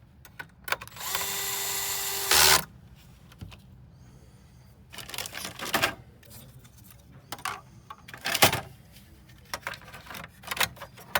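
Small electric screwdriver running with a steady whine for about a second and a half, driving a screw, ending in a short loud burst as it stops. Scattered clicks and handling knocks follow.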